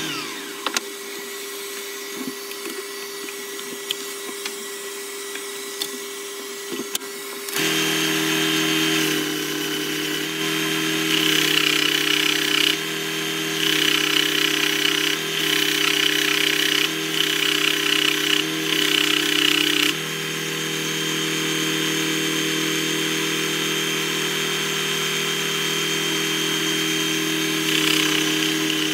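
Benchtop combination belt and disc sander running steadily, getting louder about seven seconds in. A small wooden box is pressed against the abrasive in several passes, giving a run of louder rasping strokes from about 11 to 20 seconds in, before the machine settles back to an even run.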